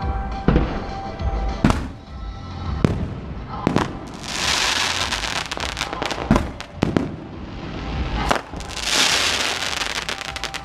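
Fireworks going off: a string of sharp bangs, with two long stretches of crackling about four and nine seconds in. Music plays underneath.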